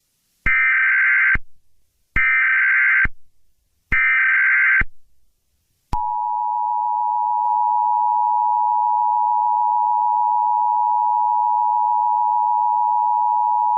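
Emergency Alert System header: three bursts of screechy digital data tones, about a second each with short gaps between, then the two-tone EAS attention signal starting about six seconds in and held steady.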